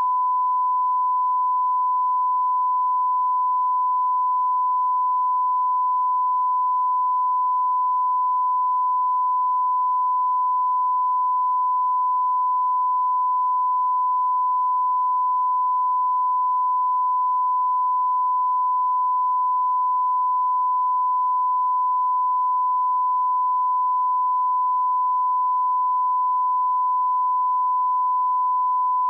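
Steady 1 kHz sine-wave line-up tone, the reference tone that accompanies colour bars for setting audio levels, held unchanged at one pitch.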